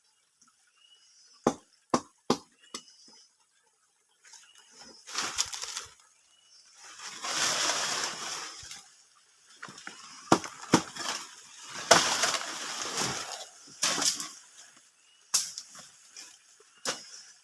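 Several sharp cracks and knocks, then repeated long bursts of rustling and crashing, like leafy branches and wood being broken and moved. No chainsaw is running.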